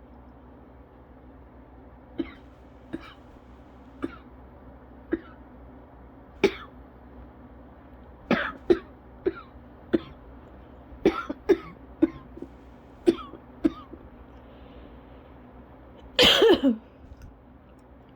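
A person coughing through a cough-variant asthma attack. First single short coughs come about a second apart, then quicker clusters of two or three. Near the end comes one longer, louder cough that drops in pitch.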